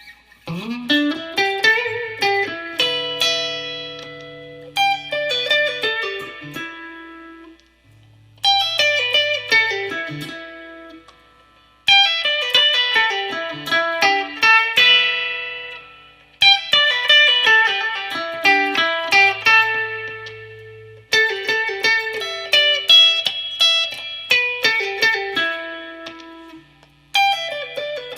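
G&L ASAT Classic Tribute electric guitar played straight into the amp with no effects. It plays repeated phrases of quickly picked, ringing notes, each starting about every four seconds and dying away before the next.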